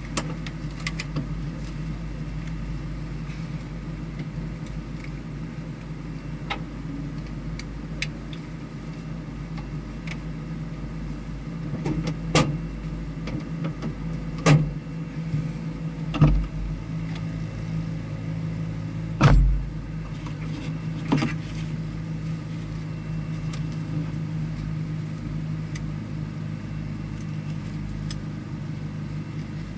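A vehicle engine idles steadily with a low, even hum. Between about 12 and 21 seconds there are five sharp knocks or thumps, and the loudest comes about two-thirds of the way through.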